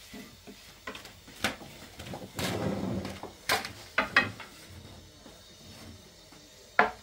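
Thin wooden rolling pins rolling out flatbread dough on small wooden boards, with several sharp wooden knocks as the pins tap the boards. The loudest knock comes near the end.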